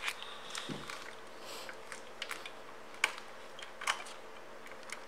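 Scattered light clicks and taps, about six over five seconds, with one dull thump about two-thirds of a second in, over quiet room tone: handling noise from a handheld camera.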